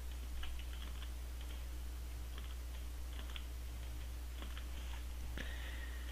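Faint, irregular clicks of computer keystrokes, a dozen or so spread unevenly, over a steady low electrical hum.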